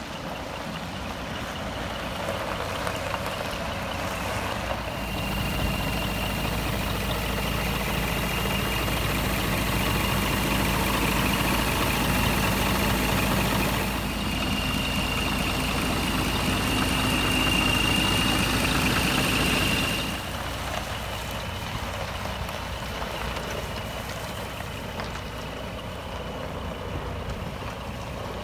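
Diesel engine of a Scania R420 tractor unit running steadily at idle. It grows louder for a long stretch in the middle, with a thin high whine over it, then drops back.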